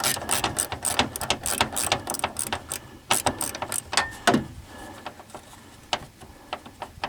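Ratcheting wrench clicking quickly as it works a door hinge bolt loose, then slowing to a few scattered clicks after about three seconds.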